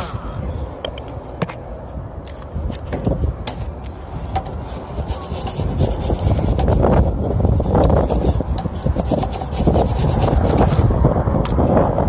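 Irregular rubbing and scraping with scattered light clicks, getting louder about halfway through.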